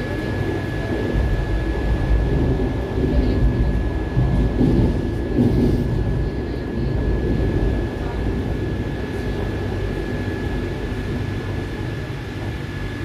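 Madrid Metro Line 5 train running through a tunnel, heard from inside the carriage: a steady rumble of wheels on rails with a constant high whine over it. The rumble eases off near the end as the train slows into the station.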